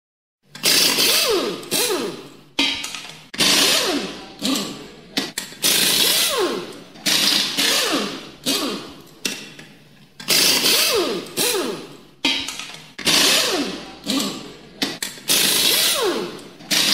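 Background rock music made of loud, repeated distorted chord hits, each fading before the next, with sliding pitches between them.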